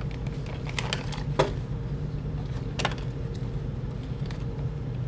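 Plastic mailer bag crinkling in someone's hands with a few short sharp crackles, over a steady low hum.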